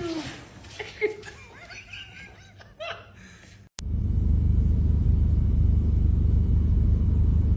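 Short bursts of laughter, then after a sudden cut a loud, steady low rumble like a car in motion.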